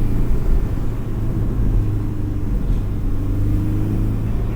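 Porsche 718's engine pulling steadily under light throttle, its pitch rising slowly, over a low road rumble.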